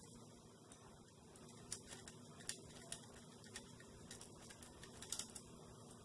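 Faint, irregular light clicks of pliers and small metal screw standoffs as they are unscrewed and handled, over quiet room tone.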